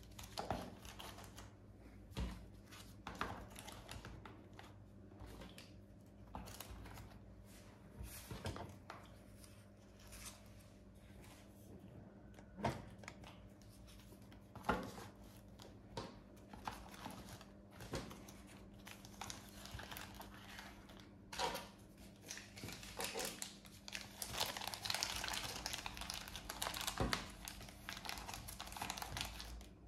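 Small resealable plastic bags of clay crinkling and rustling as fingers handle them and press them into rows in a box, with scattered sharp clicks. The crinkling turns denser and more continuous near the end.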